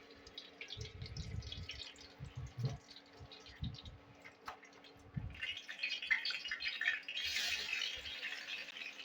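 Water running from a kitchen tap and splashing, with scattered knocks and clicks. The flow gets louder and fuller about five seconds in.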